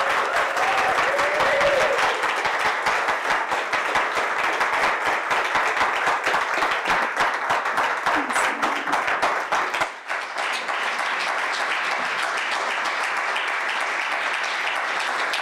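Congregation applauding: dense, even clapping with a brief dip about ten seconds in.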